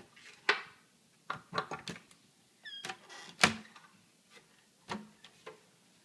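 White wooden pantry cabinet doors being opened and handled: a string of sharp clicks and knocks, with a short squeak a little before the loudest knock, about three and a half seconds in.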